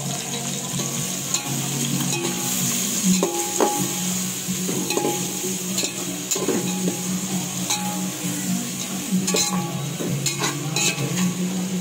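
Sliced onions and green chillies frying in hot oil with whole spices, sizzling steadily, while a spoon stirs them with scattered scraping clicks against the pot.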